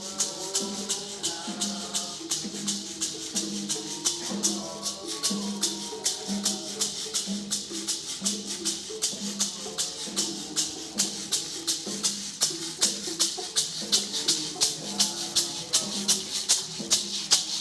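Ceremonial rattles shaken in a steady rhythm, about three shakes a second, over a low, regular pulse and a wavering melody.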